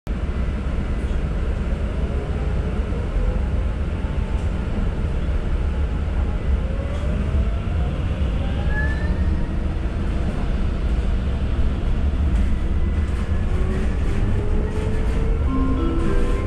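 Ride noise inside a moving city bus: a steady low rumble of engine and tyres on the road, with slowly rising whines as the bus picks up speed.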